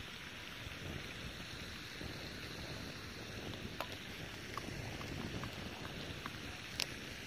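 Wind on the microphone, a steady outdoor rush, with a few faint sharp clicks about four and seven seconds in.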